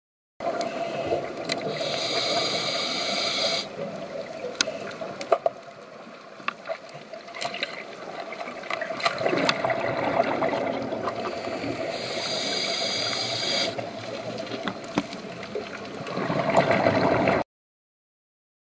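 A scuba diver's breathing heard underwater: two hissing inhalations through the regulator, about 2 and 12 seconds in, and between them the burble of exhaled bubbles, loudest near the end, with scattered sharp clicks. The sound cuts off suddenly near the end.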